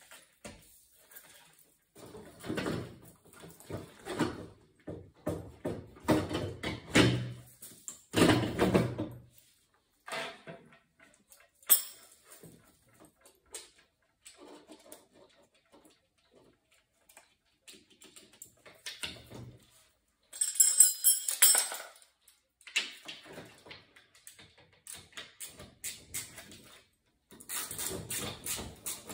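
Irregular clunks, scrapes and rattles of an oil burner being handled and fitted back onto an oil-fired condensing boiler. A sharp metallic rattle comes about two-thirds of the way through.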